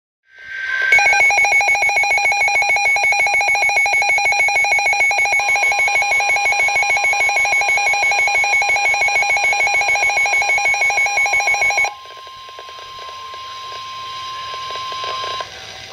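Electronic alert alarm of a weather radio: a loud, rapid, evenly pulsing beep lasting about eleven seconds, over a steady warning alarm tone. The tone carries on alone, more quietly, until near the end. It signals an incoming weather warning, here a blizzard warning.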